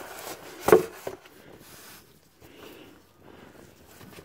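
An oil drain pan being grabbed and set in place under the transmission: one sharp knock, a couple of lighter knocks just after, then faint rubbing and shuffling.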